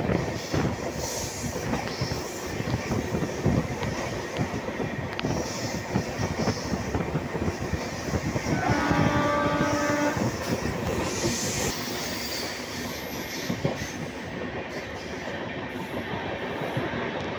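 Train running at speed, heard from on board: steady running noise with wheels clattering over the rail joints. About nine seconds in, the locomotive's horn sounds once for about a second and a half.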